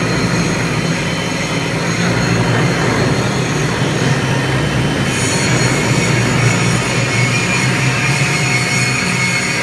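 Robotic milling of a large metal shell: a steady machine hum with a high-pitched cutting whine, the whine getting stronger about halfway through.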